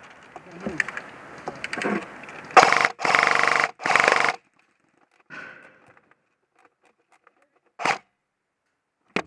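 Airsoft gun firing three full-auto bursts in quick succession, each lasting about half a second, with a rapid mechanical rattle. Before them come faint rustling and clicks; near the end there are two short sharp cracks.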